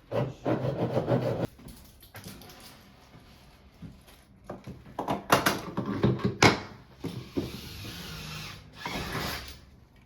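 Hand work on installation parts: a rubbing scrape, then a cluster of sharp knocks and clicks in the middle, and a longer hissing scrape near the end.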